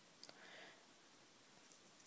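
Near silence: room tone with a couple of faint clicks about a quarter second in and a brief soft hiss just after.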